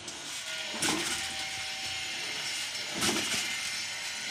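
Two sharp clacks about two seconds apart as a steel well-drilling pipe is twisted by hand with a wooden handle clamped across it, in manual deep-well boring.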